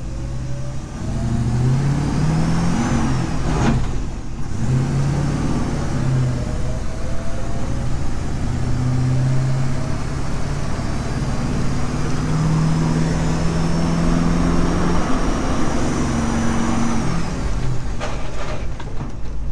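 Old truck's engine heard from inside the cab while driving, its pitch climbing and then dropping several times as it pulls through the gears. A short sharp knock sounds a few seconds in.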